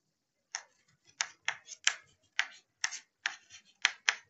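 Chalk writing on a chalkboard: a quick, irregular series of short taps and scratches, two or three a second.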